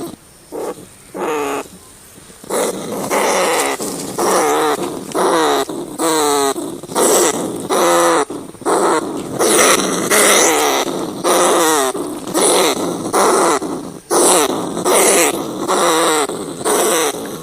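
Rat cries: a string of short, wavering squeaks, about two a second, with a quieter, sparser stretch in the first two seconds or so.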